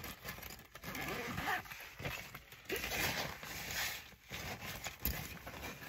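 Rustling of a fabric bag and a charger cable being handled, with scattered light knocks, as a ventilator car charger is pushed into the bag's side pocket.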